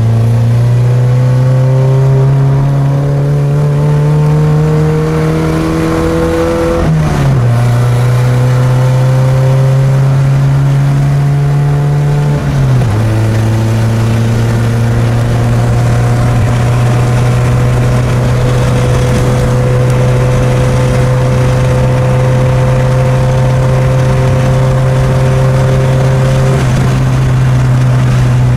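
A 2004 Mitsubishi Lancer Ralliart's engine, heard from inside the cabin, revs up through a gear. It falls in pitch at an upshift about seven seconds in, revs up again, and falls at a second upshift near thirteen seconds. It then runs at a nearly steady note at highway speed.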